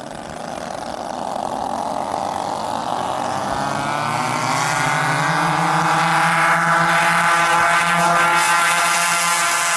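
Radio-controlled scale B-17 bomber's four engines running on its takeoff roll, a steady engine note that grows louder for the first six seconds as the plane comes down the runway and passes close by.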